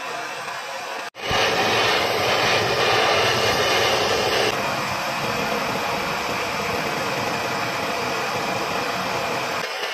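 Gas torch flame burning with a steady hiss as it heats a glass bottle neck until the glass softens and bends. The sound starts abruptly about a second in and is loudest for the next three seconds or so, then a little lower.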